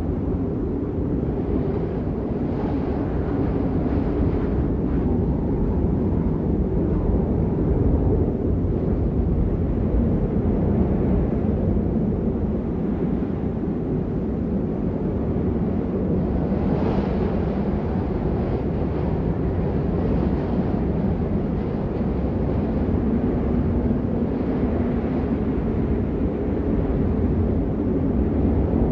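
Blizzard wind blowing steadily with a deep, low rush, swelling and easing in gusts, one stronger gust about halfway through.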